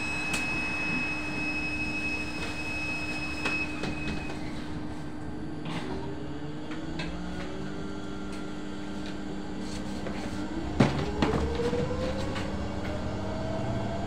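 Inside a moving electric bus: a steady drive hum with road noise, then a steadily rising whine from the electric traction motor as the bus speeds up over the last few seconds. A few knocks and rattles from the cabin are heard, the loudest one a few seconds before the end.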